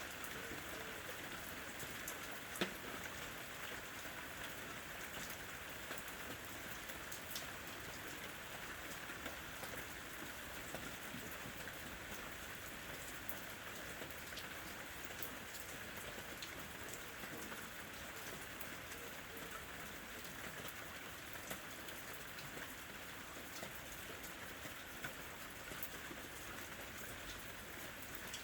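Steady rain falling, an even hiss with scattered sharp drips, one louder drop about two and a half seconds in.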